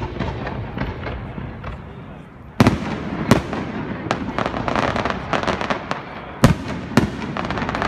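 Aerial fireworks shells bursting: four sharp bangs, two close together about two and a half seconds in and two more near the end, with a run of crackling between them.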